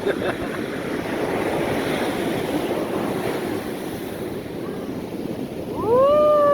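Ocean surf washing up the beach, with wind buffeting the microphone. Near the end, a short, loud, high call glides up, holds briefly and falls away.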